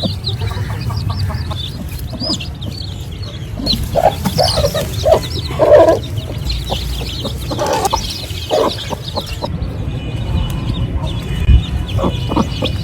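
Aseel chickens clucking, with several short calls that are loudest around the middle, over a steady low hum.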